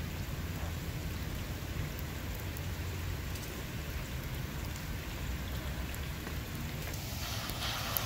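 Torrential thunderstorm rain falling steadily on wet pavement and floodwater, a steady hiss over a low rumble. About seven seconds in it changes abruptly to a louder, brighter hiss of rain on standing water.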